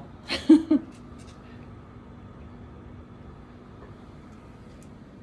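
A short spoken exclamation about half a second in, then steady faint room noise with a thin low hum.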